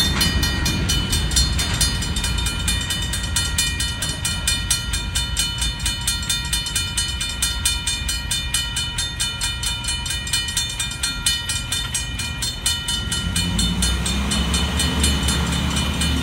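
US&S mechanical railroad crossing bells ringing steadily with rapid, even strokes. The tail of the freight train rumbles past in the first moment, and the low sound of waiting road traffic rises near the end as the gates begin to lift.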